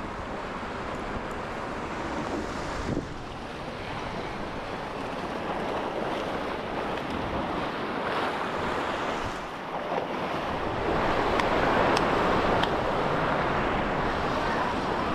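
Sea surf breaking and washing over a rocky shore ledge, with wind on the microphone. The surf grows louder in the last few seconds. There is a light knock about three seconds in.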